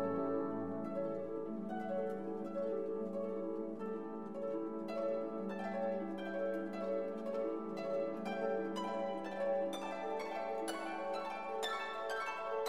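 Instrumental background music: a gentle ambient piece of quick, ringing plucked notes over a held low note.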